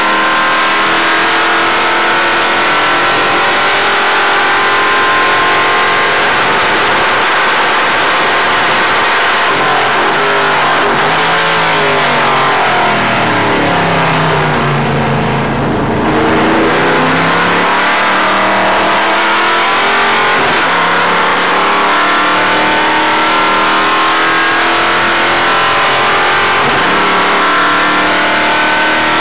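Stock car race engine heard from inside the cockpit, running hard at high revs. About halfway through, the engine note falls steadily as the car slows, then climbs again as it accelerates away.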